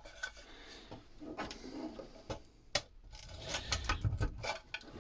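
Parts of a battery charger being handled and pulled at by hand: scattered clicks, knocks and scraping of metal and plastic, with one sharp click a little before halfway through.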